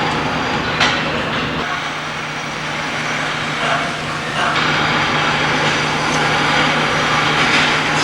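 Steady, loud machine noise in a shop, with a low hum that comes in after about a second and a sharp click just before it.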